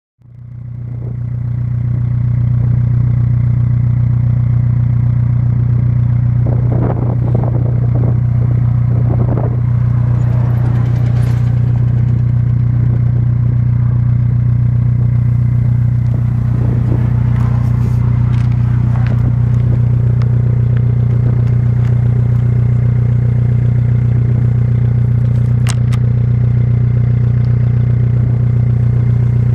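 Seat Ibiza 1.9 SDI four-cylinder diesel engine idling steadily through a hand-made stainless steel exhaust with no silencer, heard at the tailpipe. It fades in over the first two seconds, with a few faint clicks and scrapes scattered on top.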